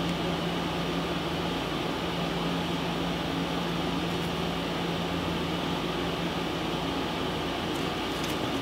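Steady background hum with an even hiss, unchanging throughout, with a couple of very faint ticks near the end.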